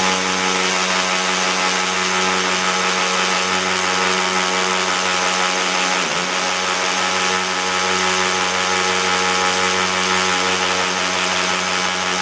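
Small electric drill running continuously while boring into concrete with a masonry bit, a steady motor whine over a gritty hiss, with a brief dip about six seconds in. The drill is too light for the job: the bit is barely advancing into the concrete.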